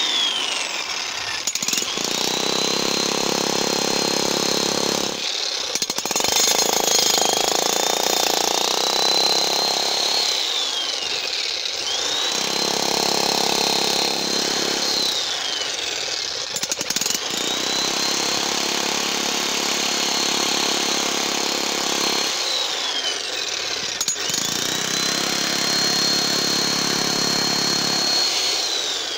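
Titan TTB280DRH 15.5 kg electric hex-shank breaker hammering a flat chisel into old concrete in about five bursts of several seconds each. Its motor whine rises as each burst starts and falls away in the short pauses between them.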